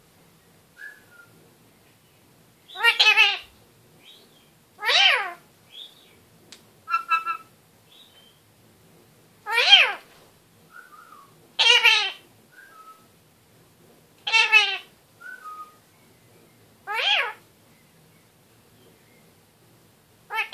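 Red-fronted kakariki giving a series of loud, drawn-out calls, about seven of them a couple of seconds apart, with soft short chirps between and a quick chattering run about seven seconds in.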